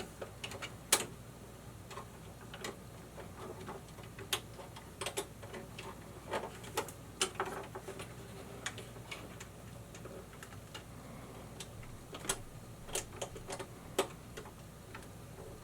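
Irregular small clicks and taps of a stiff copper ground wire being poked and scraped against a metal subpanel's ground bus bar while trying to get it into the terminal hole, over a faint steady hum.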